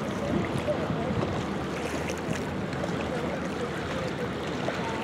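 Steady outdoor noise of wind and lake water, an even hiss with no distinct event.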